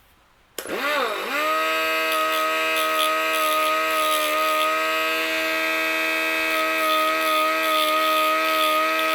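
Die grinder starting up about half a second in, its pitch dipping and then climbing as it spins up, then running at a steady high whine. Irregular scratchy hiss on top comes from the grinding bit working on the chainsaw chain's drive links, dressing off the raised edges and dimples left when the chain jumped off the sprocket.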